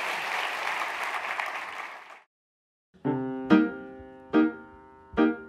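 Audience applause fading out about two seconds in; after a brief silence, piano notes of outro music begin about three seconds in, struck one after another.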